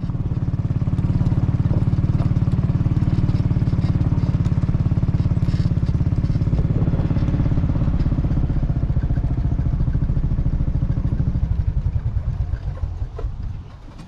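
Small engine running steadily with a fast, even pulse, dying away over the last few seconds.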